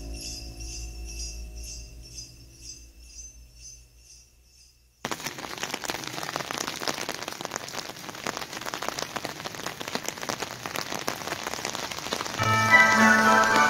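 Christmas music with jingle bells fades out over the first few seconds. About five seconds in, steady rain cuts in suddenly, heard from under an umbrella. Music starts again near the end.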